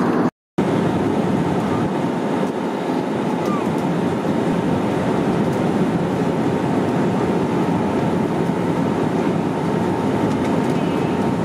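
Steady engine and airflow noise inside the cabin of an Airbus A320neo airliner in flight, with a faint steady whine above it. It cuts out for a moment just after the start.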